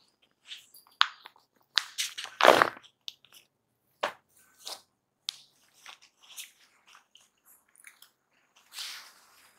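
Rustling and crinkling of a suit being handled and spread out, in scattered irregular crackles and clicks with a louder rustle about two and a half seconds in.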